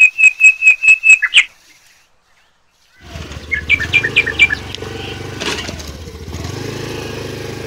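A rapid run of loud, high bird chirps, about five a second, stops after a second and a half. After a short gap a motor scooter's engine starts running steadily as it rides over a rough dirt track, with a brief burst of bird chirps over it.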